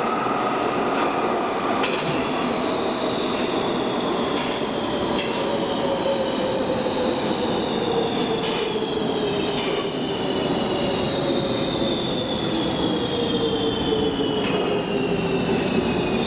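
Electric metro or tram train running on rails, its traction-motor whine sliding steadily down in pitch as it slows, over a steady rumble of wheels on track with a few faint clicks.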